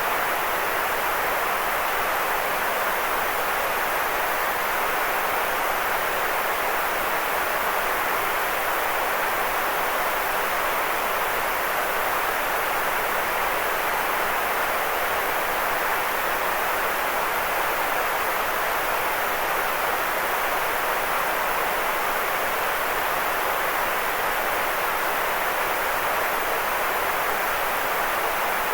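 Steady white noise: an even, unchanging hiss, fullest in the middle of the range, with no rhythm, breaks or events.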